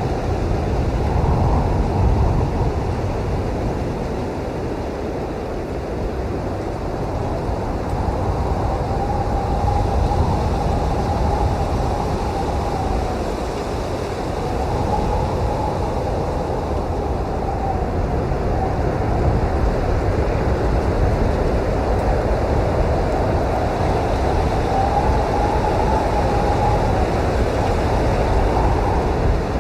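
Blizzard wind blowing hard and steadily, swelling and easing slowly, with a faint howl that wavers up and down now and then.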